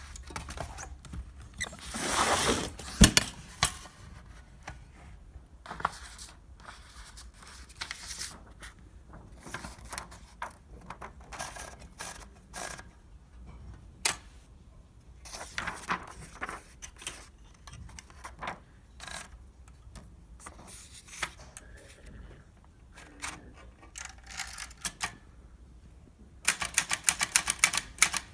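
Olivetti Lettera 32 portable typewriter being handled and typed on: scattered, irregular clacks with a longer rustling scrape a couple of seconds in, and a quick run of keystrokes near the end.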